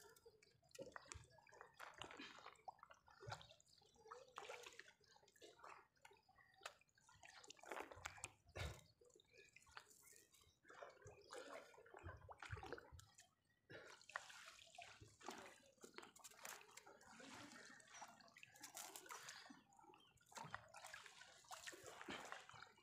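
Faint, irregular dripping and splashing of water as a wet monofilament fishing net is pulled by hand out of the water into a small boat.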